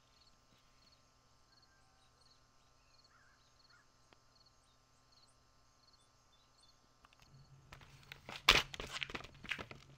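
Quiet outdoor ambience with faint high chirps repeating at an even pace. About seven seconds in, a low hum starts, then a Onewheel electric skateboard is knocked and scuffed about on concrete under a rider's shoes: a run of sharp knocks, the loudest about eight and a half seconds in.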